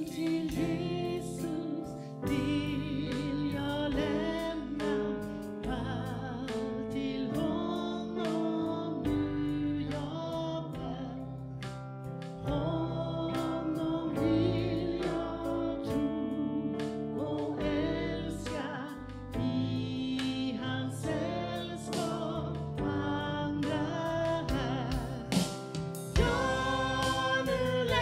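Congregation singing a worship song together, with instrumental accompaniment, as the closing song of a church service.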